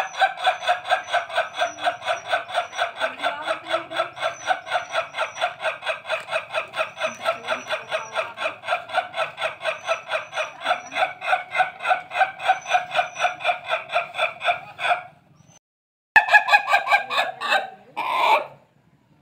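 Ayam ketawa (laughing chicken) rooster crowing: one long crow of rapid, stuttering syllables lasting about fifteen seconds, the breed's laugh-like crow. After a brief pause it gives a shorter burst of the same.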